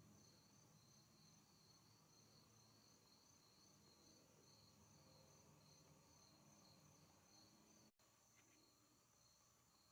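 Near silence with a faint, high, steady chorus of insects in the surrounding woods; the sound drops out for an instant about eight seconds in.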